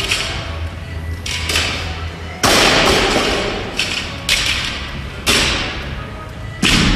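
Barbell loaded with rubber bumper plates dropped and set down on a gym floor: a series of heavy thuds with rattling, ringing tails, the loudest about two and a half seconds in and again near the end.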